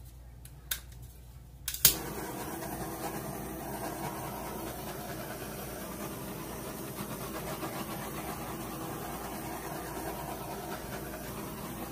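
A small handheld gas torch: a couple of faint clicks, then a sharp igniter click about two seconds in, after which the flame burns with a steady hiss.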